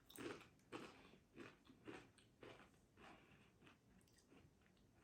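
A person chewing a mouthful of Pringles crisps, quiet crunches about twice a second that die away after about three seconds.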